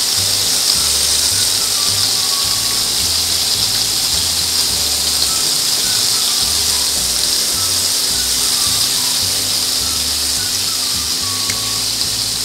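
Battered chicken pieces deep-frying in a wok full of hot oil: a steady, loud sizzling hiss of foaming oil. Background music with a bass line runs underneath.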